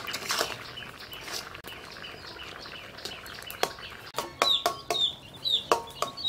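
Chickens clucking in a run of short, sharp calls during the second half, over faint clicking and scraping of a steel ladle stirring in an iron kadai.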